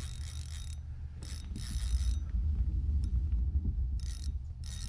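Fishing reel working under the load of a heavy fish: a high mechanical whir with clicks comes in several short stretches, stopping and starting, over a steady low rumble.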